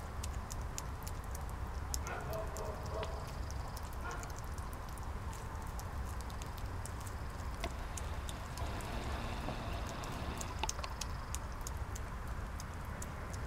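European hedgehog chewing and smacking soft meaty food close up: an irregular run of small wet clicks and lip smacks, over a steady low rumble.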